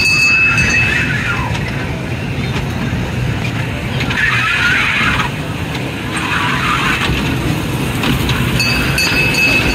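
Fairground kiddie train running along its track with a steady low rumble. A thin, steady high whine sounds for about the first second and again near the end, and children's voices come through in the middle.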